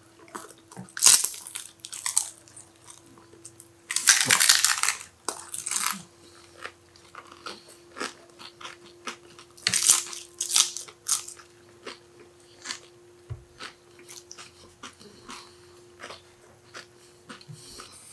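Crisp fried pani puri (golgappa) shells being bitten and chewed in big mouthfuls: irregular crunching, loudest about a second in, for about a second around four seconds, and again around ten seconds.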